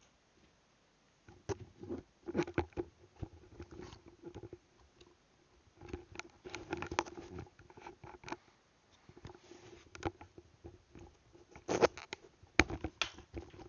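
Scattered knocks, clicks and rustling as over-ear headphones are picked up and handled close to the microphone, with two sharper knocks near the end.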